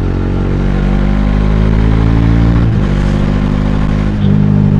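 Bajaj Dominar 400's single-cylinder engine accelerating under throttle, its pitch climbing steadily, dropping at an upshift about three seconds in, then climbing again.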